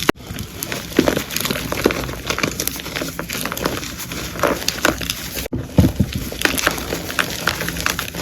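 Pressed gym chalk pieces being crushed and crumbled, a dense run of dry crunches and crackles with many small sharp snaps, broken by a couple of abrupt cuts.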